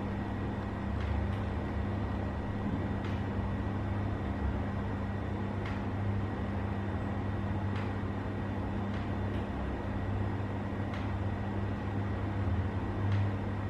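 Steady low hum of background room noise, with a faint steady high tone and a few faint, scattered clicks.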